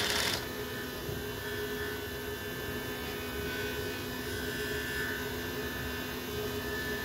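CNC plasma cutter: a brief burst of hiss right at the start as the torch fires, then a steady hum with faint whines that shift in pitch as the stepper motors move the gantry and the torch-height lead screw.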